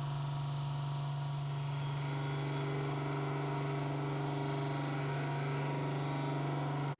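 A power tool's electric motor running steadily with an even hum while a hand-forged rebar knife blade is cleaned up on it.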